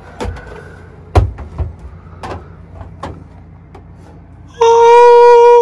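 A metal loaf pan clanks and knocks as it is pulled from the oven and set down on stainless steel stove grates, with a few sharp knocks, the loudest about a second in. Near the end a loud, steady held note starts and carries on.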